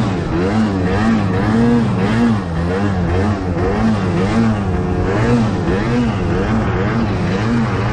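Arctic Cat M8000 snowmobile's two-stroke engine under load in deep powder, its revs rising and falling about every half second as the throttle is worked.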